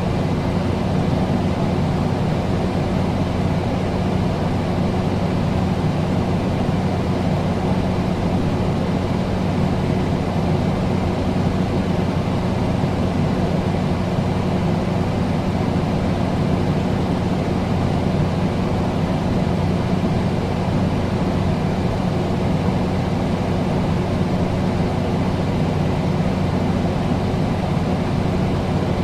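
Air conditioner running steadily: a constant rush of air over a low, even hum.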